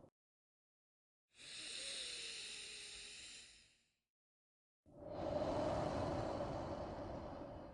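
Slow, deliberate human breathing for a relaxation breathing exercise. About a second in comes one long, hissy breath of some two and a half seconds; after a short silent pause, a second, fuller and lower breath of about three seconds fades out near the end.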